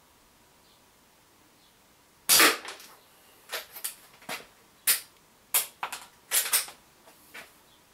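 A CO2 lever-action air rifle firing one sharp shot about two seconds in, followed by a quicker string of sharp clicks and clacks as the lever action is cycled and the shell is ejected.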